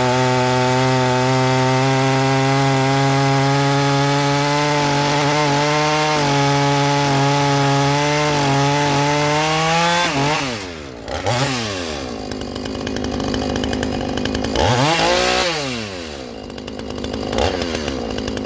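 Two-stroke chainsaw cutting hardwood under load at a steady pitch with small dips, then breaking through about ten seconds in, revving freely and dropping to idle. It is blipped up and back down once more a few seconds later. The saw is tuned a tiny bit rich but revs well.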